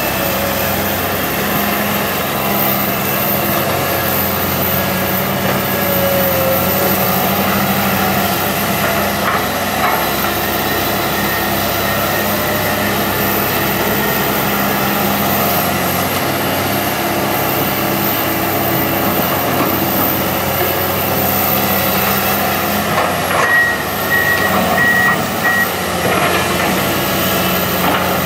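Komatsu hydraulic excavator's diesel engine running steadily while it works. Near the end a travel alarm gives a short run of about five quick high beeps.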